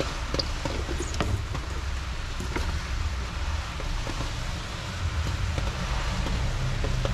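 Coat-hanger wire rubbing and scraping as it is drawn through a rubber firewall grommet, with scattered light clicks and ticks over a steady low rumble. The taped cable slips off, so the wire pulls straight through on its own.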